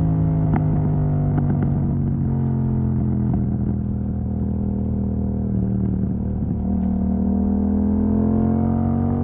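Yamaha MT-07's parallel-twin engine running through an exhaust with its dB killer removed, holding a steady mid-range note. The pitch sags a little, then climbs gently through the second half as the revs build.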